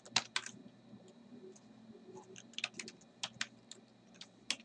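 Computer keyboard keystrokes typed in short runs: a few quick presses right at the start, then spaced clicks from about two and a half seconds in, with pauses between.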